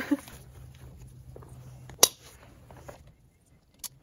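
Chainsaw safety chaps being put on: rustling and handling of the heavy fabric and straps, with one sharp click about two seconds in and a smaller one near the end.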